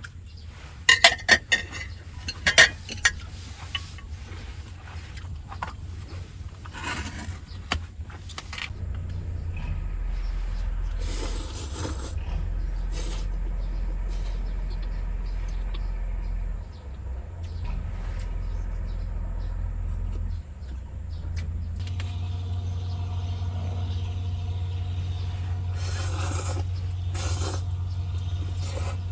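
A few sharp clicks and rattles, then a car engine running steadily from about ten seconds in, its low hum growing steadier near the end.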